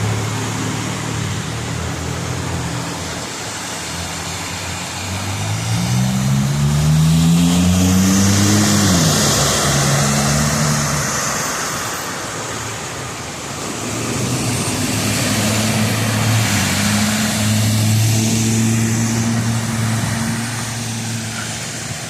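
Cars passing on a wet, flooded street. One accelerates past with its engine pitch rising and then dropping about nine seconds in, its tyres hissing loudly on the water. Another engine runs steadily later on.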